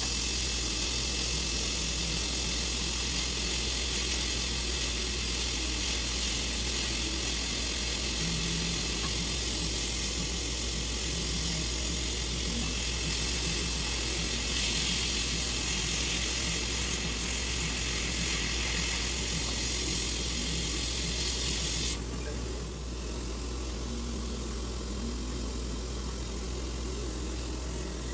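Dental suction tip hissing steadily over a constant low hum of operatory equipment, as sodium hypochlorite irrigant in the root canal is activated by laser. The high hiss cuts off suddenly about 22 seconds in, leaving the low hum.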